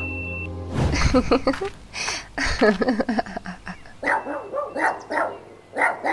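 Small dog barking and yipping in a series of short calls.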